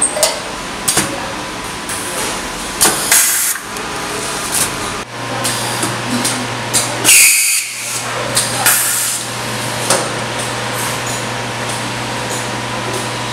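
Automatic tube-film packing machine running: short hisses of compressed air from its pneumatic parts come every second or two with clicks and knocks of the mechanism. A steady low machine hum comes in about five seconds in.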